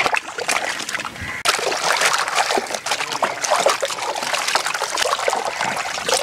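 Water splashing and sloshing in an aluminium basin as goat offal is washed by hand, with water trickling back off pieces lifted out of it. A brief lull comes about a second and a half in.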